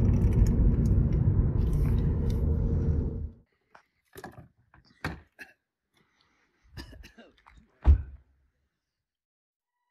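Steady low rumble of airliner cabin noise, cutting off abruptly about three seconds in; then scattered clicks and knocks, with one loud thump about eight seconds in.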